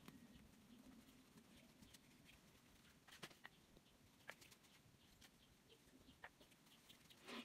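Near silence: faint room tone with a few scattered light ticks.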